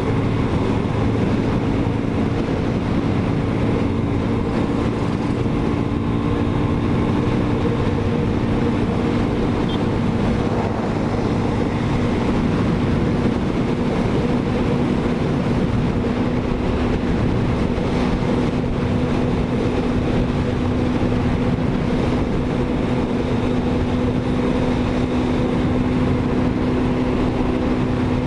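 Motorcycle engine running at a steady highway cruising speed: an even, unchanging hum with a rushing noise underneath.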